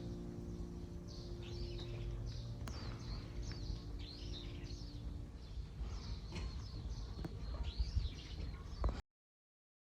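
Small birds chirping and singing, many short repeated calls, over a low steady outdoor rumble. The sound cuts off to silence about nine seconds in.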